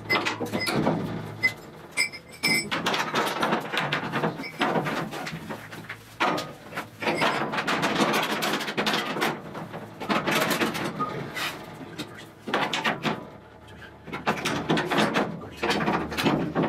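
Ratchet straps and clamps being handled and hooked across an aluminium boat hull: a busy run of clicks, clinks and knocks from metal hooks, ratchets and clamps against the sheet aluminium.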